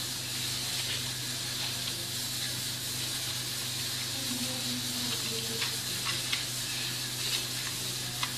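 Steady hiss with a low hum underneath, and a few faint soft clicks in the second half from hands squeezing minced meat through a funnel into a sheep-intestine sausage casing.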